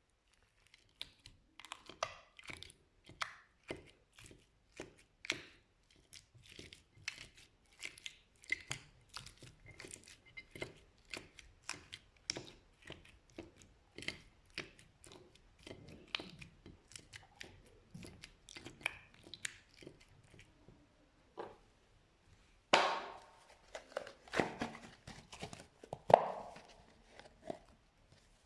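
Slime being pressed and worked by hand, giving a fast run of small crackling pops. After a short lull about 20 seconds in, there are a few louder, longer crackles near the end.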